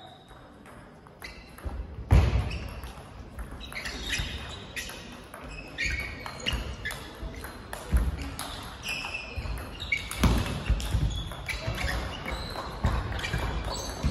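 Table tennis rally: the ball clicks back and forth off the bats and the table in quick, irregular strokes, with a few heavier thuds. It echoes in a large hall.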